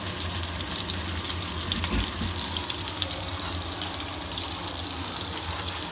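Slices of raw duck foie gras searing in a frying pan: a steady sizzle with small crackles.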